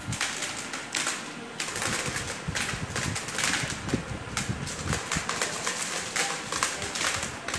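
Dried maize kernels being stripped off the cobs by hand, rattling and pattering into a plastic tub in a dense, continuous crackle of small clicks.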